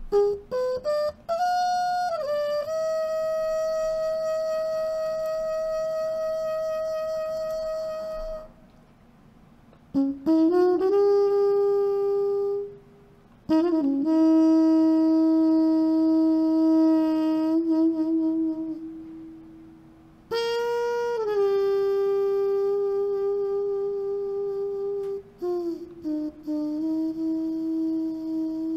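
Solo trumpet playing a slow, lyrical melody of long held notes with a light vibrato, in three phrases separated by short pauses.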